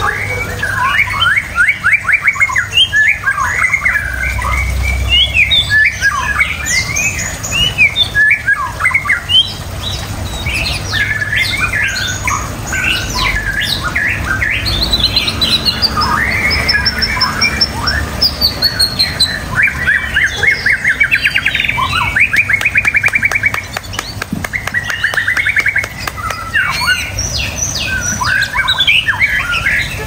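A caged white-rumped shama (murai batu) in full song: a long, varied stream of whistled phrases, rapid trills and harsh chattering notes with hardly a break.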